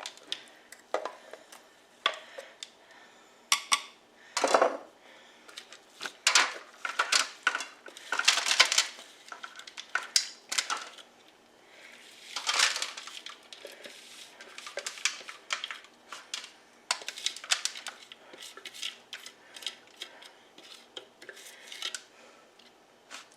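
A kitchen utensil scraping and clinking against a bowl in irregular knocks and scrapes while the buttered crumb crust mixture is divided up.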